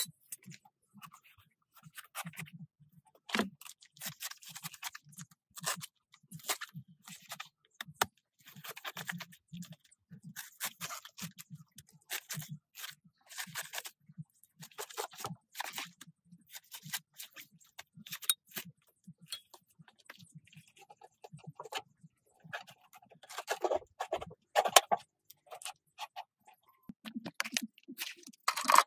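Irregular scraping, crinkling and clicking of a plastic cylinder form being handled and trimmed with a knife inside a steel can. Near the end, a trowel scrapes and scoops wet cement in a bucket.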